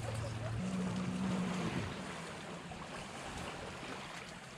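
Wind on the microphone and small lake waves at the shore make a steady rushing noise. A low motor hum runs under it at first, jumps up in pitch about half a second in and fades out by about two seconds.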